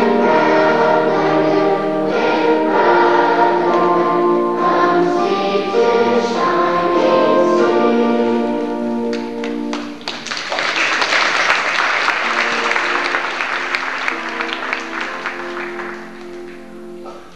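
A children's choir sings sustained notes in unison, then the song ends about ten seconds in and the audience bursts into applause, which fades away near the end.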